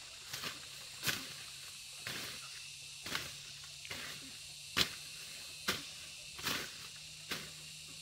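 A series of short, sharp swishing strikes, about nine of them at irregular intervals of roughly a second.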